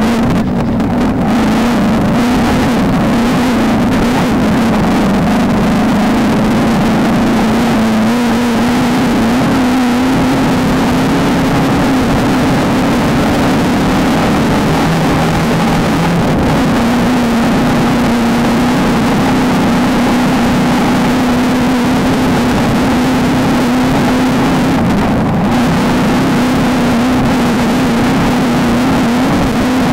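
Off-road race vehicle's engine running hard at high, fairly steady revs, its pitch wavering only slightly up and down, with a constant rough noise mixed in.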